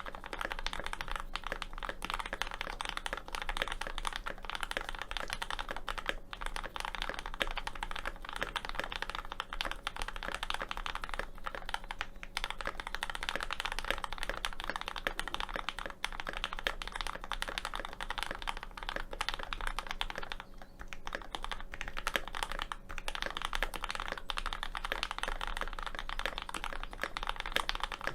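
Continuous typing on a GMMK Pro mechanical keyboard with lubed and filmed Kinetic Labs Hippo switches, an aluminium plate, a tape mod and GMK Dracula keycaps. The key presses run together densely, with a few brief pauses.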